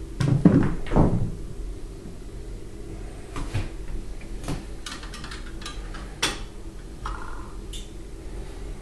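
A large spiral seashell being handled and set on a glass-and-chrome shelf. Two louder rubbing thumps come in the first second or so, then a scatter of light knocks and clicks of shell against glass and metal.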